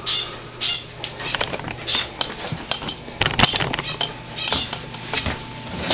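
Irregular light clicks, taps and rattles of hand handling, with brief rustles in between.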